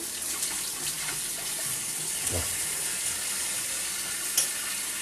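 Tap water running steadily into a bathroom sink, with a single light click about four seconds in.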